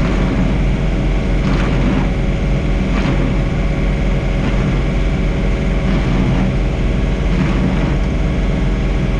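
John Deere 3046R compact tractor's three-cylinder diesel engine running steadily under working load while snowblowing, its snowblower working.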